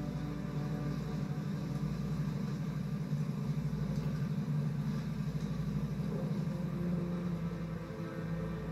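Film soundtrack: a vehicle engine running steadily with a low, pulsing rumble, as a driver heads through a rainy night, played back through a television speaker.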